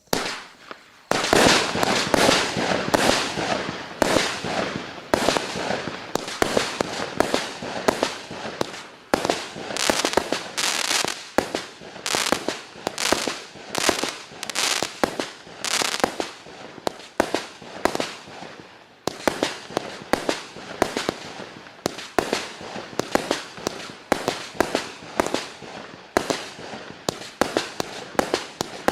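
A 192-shot firework battery (cake) firing shot after shot, sharp bangs coming about two a second with crackling between them. It starts abruptly, with a big bang about a second in, and is loudest over the first few seconds.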